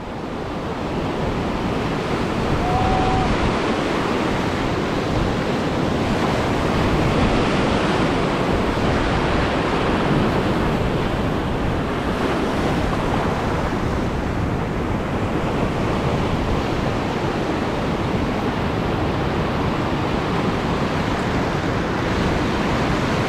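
Steady surf washing over a shallow reef edge, with wind on the microphone.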